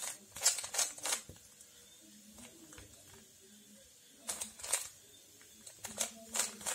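Plastic 3x3 Rubik's cube being turned quickly by hand: runs of rapid clicks as the layers snap round. There is a burst of turns at the start, another a little past four seconds in, and more near the end.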